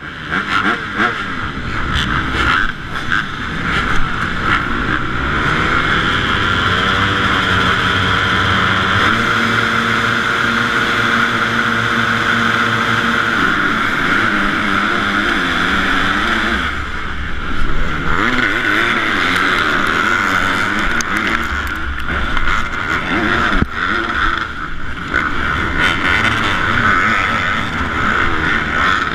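Several 250-class motocross bikes running flat out together off the start and down the straight, their engines revving and climbing in pitch through the gears, heard from a camera on a rider's helmet with wind noise over it. The engine note steadies for a while, dips briefly about two-thirds of the way in, then keeps rising and falling as the pack races on.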